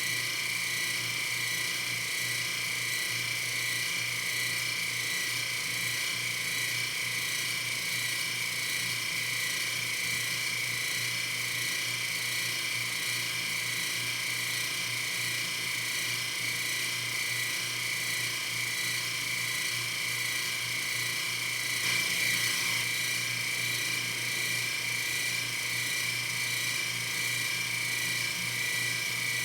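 Metal lathe running steadily with a high, even whine while turning a part, with a brief louder patch about 22 seconds in.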